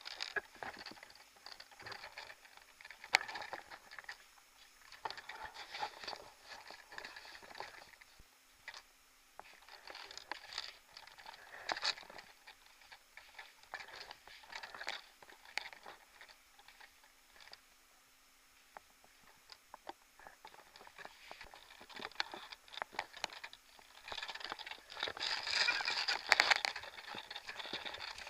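Irregular soft crunching and rustling in scattered bunches with short quiet gaps, with a few sharper clicks; it is busiest near the end.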